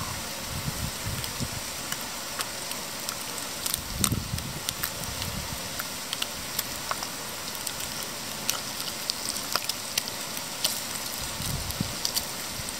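Bacon sizzling and crackling in a small frying pan on a mini Trangia alcohol stove: a steady hiss with frequent sharp pops. A few low rumbles come and go, about a second in, around four seconds and near the end.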